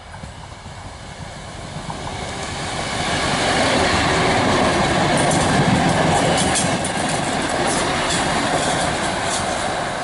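RA2 diesel railcar passing close by. Its running noise grows louder over the first few seconds, then the wheels click rapidly over the rail joints as the cars go past.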